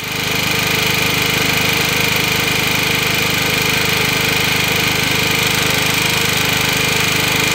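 Small petrol generator engine running steadily under load, getting louder in the first half second and then holding an even, fast-pulsing drone.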